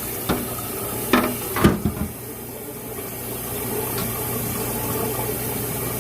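Several sharp knocks and clatters of household items being handled in the first two seconds, then a steady low hum with a faint hiss.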